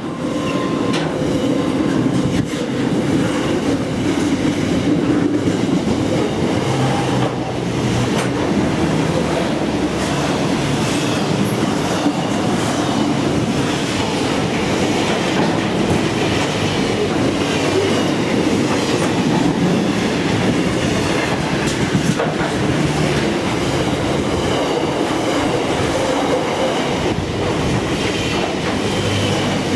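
Freight train's container wagons rolling past at speed close by, a steady loud rumble of steel wheels on rail with clicks over the rail joints.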